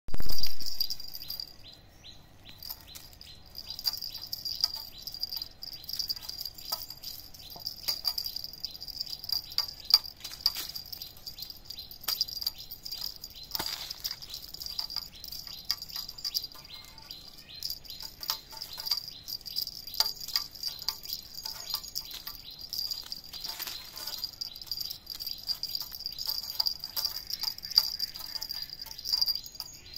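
A steady high-pitched insect drone, like a chorus of crickets, with many quick clicks and rattles over it. A brief loud noise at the very start.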